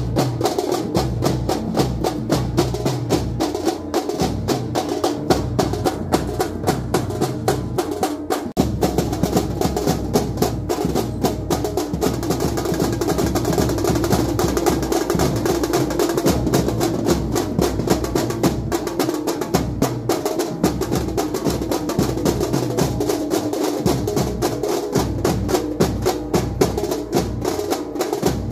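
A group of drummers beating large double-headed drums with sticks in the fast, dense chokara rhythm of Muharram drumming. The beat runs without letup except for a brief break about eight seconds in.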